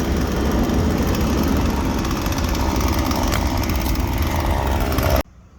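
Husqvarna 120 Mark II two-stroke chainsaw running steadily, then cutting off abruptly about five seconds in.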